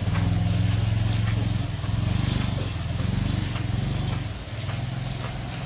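Motorcycle engine running close by: a low, steady drone whose pitch shifts slightly, easing off about four seconds in.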